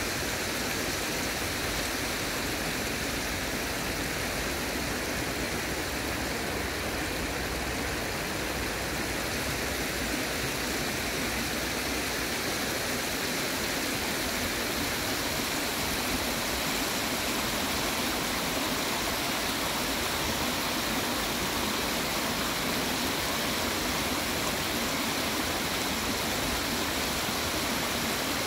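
Shallow stream water rushing steadily over a rocky riffle.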